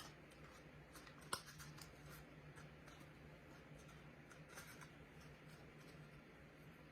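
Faint snipping of scissors cutting through a cardboard toilet paper roll, with scattered small clicks and one sharper snip about a second in.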